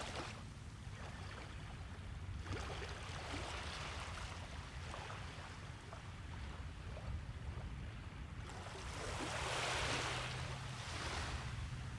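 Small waves washing onto a sandy beach, swelling and fading, with the largest wash coming in about nine to eleven seconds in, over a steady low rumble.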